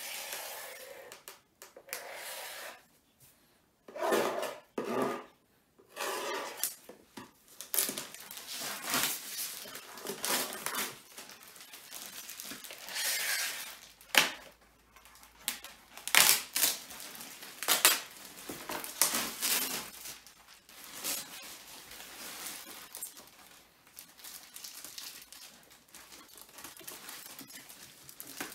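Unpacking a flat-pack table: the cardboard box is cut and torn open and clear plastic wrap is pulled off and crinkled, with irregular rips, scrapes and rustling broken by a few sharp clicks.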